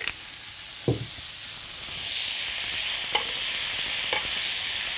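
Dry-cured streaky bacon sizzling in a hot frying pan as its fat renders out, stirred and scraped around with a metal spoon, with a few light clinks. A dull knock about a second in; the sizzling grows louder after about two seconds.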